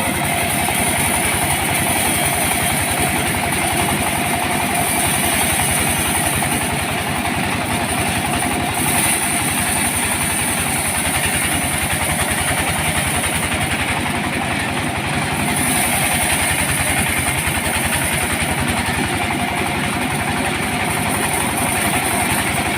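Engine of a sawmill running steadily at an even pace.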